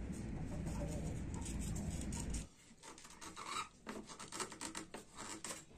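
Utility knife blade scraping and cutting along the edge of a picture frame with a steady rasp. About two and a half seconds in, the background drops away abruptly, and the rest is a run of short, irregular scraping strokes.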